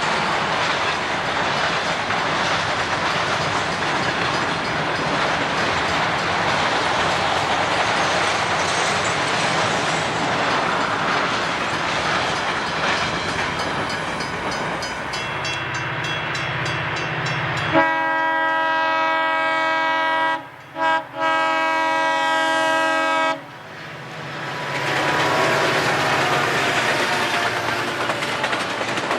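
A train rolling past with a steady rumble and wheel clatter. About eighteen seconds in, a locomotive air horn blasts for about five seconds, broken twice by short gaps, and then the rumble returns.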